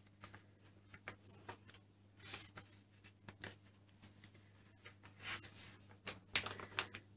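Faint rustling and soft taps of a glossy paper magazine page being lifted and turned by hand, a few separate rustles with the loudest near the end, over a low steady hum.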